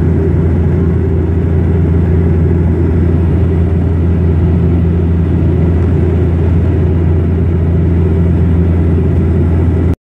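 Aircraft cabin noise in flight: the engines' steady, loud low drone heard from inside the cabin, unchanging throughout.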